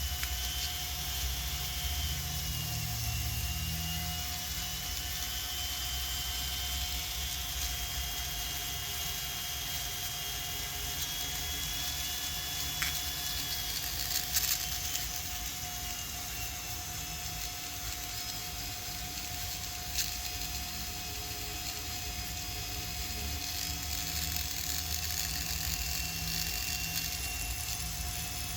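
A small motor running steadily, with a faint high whine that drifts a little in pitch, and a few light clicks.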